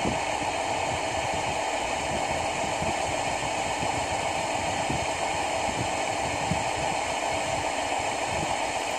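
Steady, unchanging machinery hum with a hiss over it.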